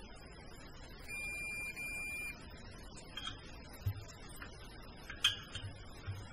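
Snap-on digital torque wrench giving one steady, high beep of about a second, the signal that the cylinder head nut has reached the set torque of 7 foot-pounds. It is followed by a few light metallic clicks and knocks of the wrench and socket being handled.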